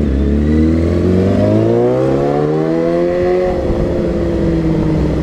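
Sport motorcycle engine accelerating, heard from the rider's seat: its pitch climbs steadily for about three and a half seconds, then levels off and eases down a little.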